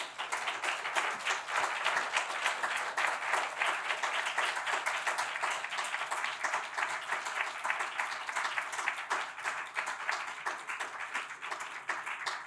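Audience applauding steadily, many hands clapping, beginning to thin out near the end.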